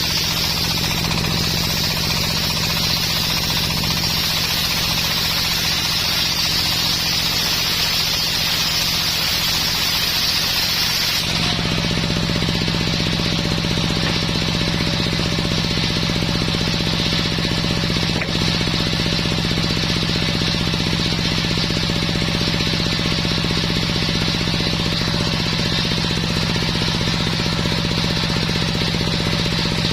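Homemade circular sawmill running, with the steady drone of its engine under the loud hiss of the blade cutting dense coconut wood. The hiss stops suddenly about eleven seconds in as the cut ends, leaving the engine and blade running without load.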